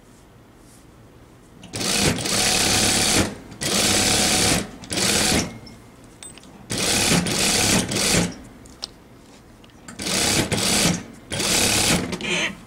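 Unicorn industrial sewing machine stitching lace trim along a blouse seam. It runs in six spurts of about half a second to a second and a half each, with short pauses between them as the fabric is repositioned, starting a little under two seconds in.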